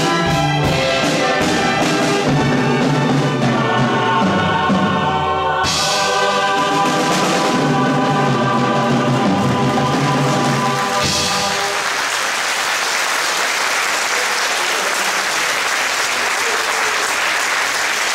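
Choir and chamber orchestra with brass playing the closing chords of a song, which end about two-thirds of the way through; the audience then applauds.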